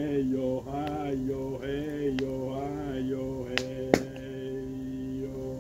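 Voices singing a slow, drawn-out chant over a burning log fire. The fire gives two sharp pops about three and a half and four seconds in, the second the loudest sound.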